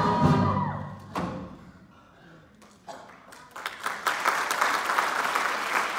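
A sung musical number ends on a held chord with a sharp closing hit about a second in. After a short hush, a theatre audience starts applauding, scattered at first and then full clapping from about four seconds in.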